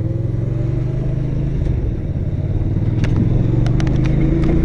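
Motorcycle engine pulling away and accelerating, getting gradually louder, with several sharp ticks in the last couple of seconds.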